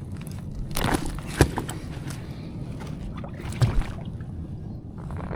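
Water sloshing around an inflatable kayak, with a few light knocks about a second in and again near four seconds.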